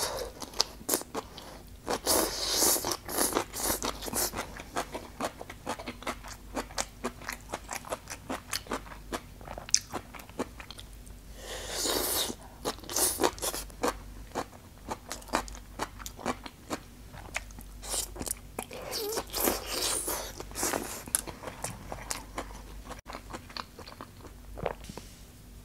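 Close-up eating of grilled skewered food: biting and chewing with many wet mouth clicks, and a few louder, noisier stretches of chewing about two seconds in, around the middle and near three quarters through, dying down near the end.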